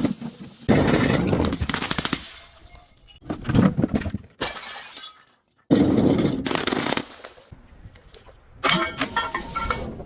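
Glass being crushed: bouts of crunching and shattering, about five of them a second or so long, several starting abruptly, with quieter gaps between.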